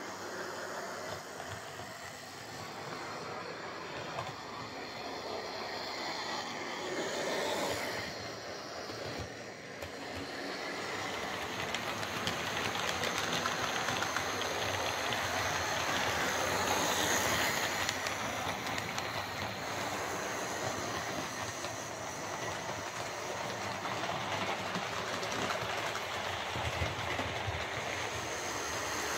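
OO gauge model locomotives running on the layout track, a steady mechanical running noise from motors and wheels on rail. It grows louder around the middle as a locomotive hauling coaches passes close by.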